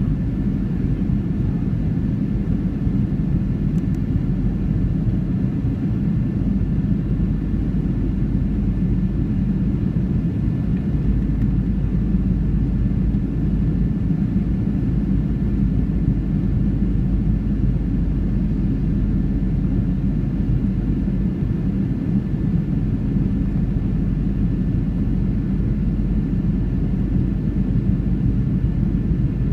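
Steady cabin noise of a Boeing 737-700 on approach, heard from inside the cabin behind the wing: an even low rumble from its CFM56-7B engines and the airflow, with a faint steady whine above it.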